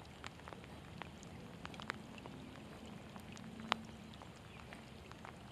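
Light rain: scattered raindrops ticking irregularly close to the microphone over a faint steady hiss, with one sharper tick a little past halfway.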